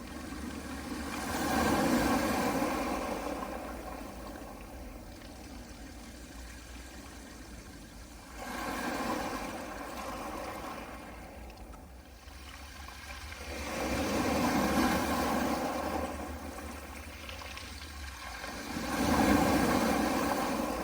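Small sea waves breaking and washing over a pebble beach, swelling and ebbing about every five seconds, four surges in all.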